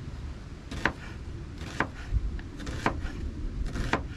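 Knife slicing onions on a wooden cutting board, four crisp chops about a second apart.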